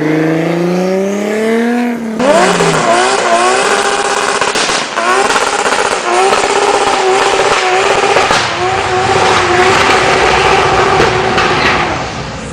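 Car engines revving at high speed, rising in pitch again and again as if accelerating through the gears. About two seconds in it changes abruptly to a louder, denser engine sound.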